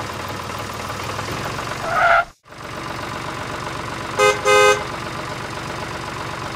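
A steady low engine drone, as of a tractor running, with two short horn toots a little past halfway. The drone cuts out for a moment about two and a half seconds in.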